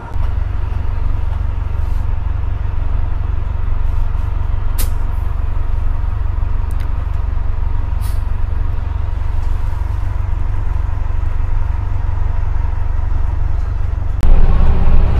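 Steady low rumble of a motor vehicle engine running, with a faint steady whine over it and a couple of sharp clicks. The sound grows louder about 14 seconds in.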